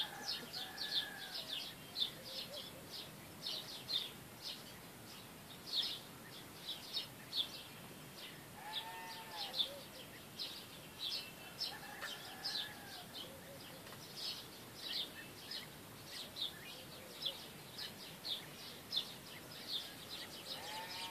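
Small birds chirping in quick, high notes throughout, several calls a second. Every few seconds a short, lower arching call from a farm animal breaks in.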